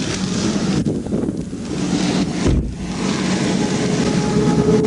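Highway traffic passing on the interstate with wind rushing over the microphone, and a brief low thump about two and a half seconds in. Near the end a heavy truck's steady drone grows louder as it approaches.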